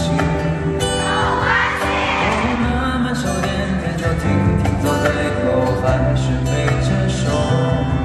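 A slow pop song performed live on a concert stage: held chords over a low bass line, with a male voice singing.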